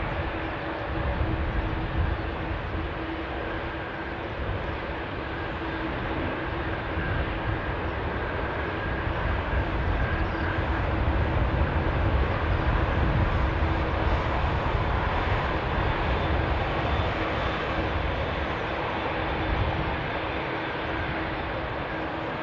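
Boeing 747-8 freighter's four General Electric GEnx-2B turbofans at take-off thrust: a continuous jet roar with a deep rumble and a steady hum running through it. It swells to its loudest about halfway through as the jet climbs out, then eases a little near the end.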